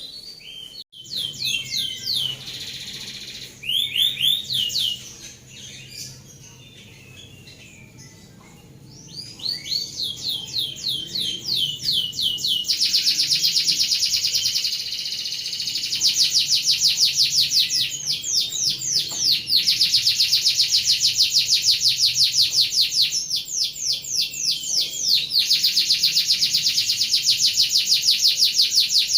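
Domestic canary singing rolling song: rapid trains of high repeated notes, short bursts at first, then after a quieter pause long unbroken trills that run on for several seconds each.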